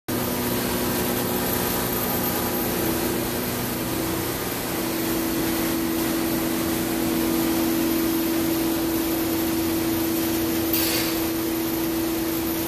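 Thermwood CNC router running steadily while its spindle mills grooves into a stacked workpiece: a constant machine hum whose pitch shifts slightly about four seconds in. A short hiss about eleven seconds in.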